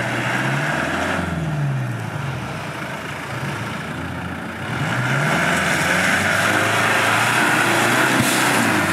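Land Rover Defender engine revving under load in mud, its pitch climbing and falling several times as the throttle is worked. A louder rushing noise joins in from about five seconds in.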